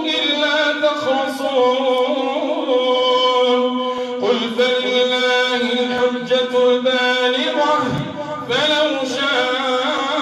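Imam's melodic Quran recitation: one male voice holding long, ornamented notes over the microphone, pausing briefly about four and eight and a half seconds in before rising into the next phrase.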